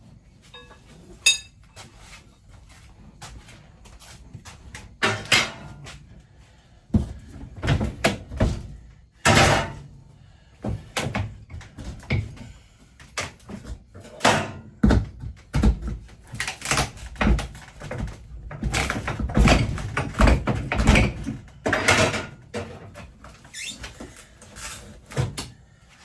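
Irregular knocks, thuds and clatter of wooden cabinet doors and panels in an RV kitchen being handled and pried at during tear-out, with some scraping and squeaking. It is busiest in the second half.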